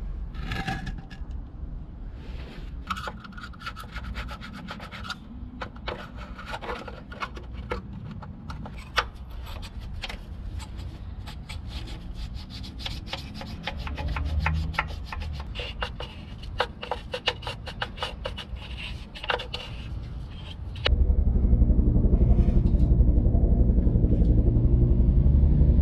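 Repeated scraping and rasping strokes as old gasket residue is cleaned off a sealing surface on the front of the engine block, prep work so that new parts will not leak again. About 21 seconds in, much louder background music cuts in over it.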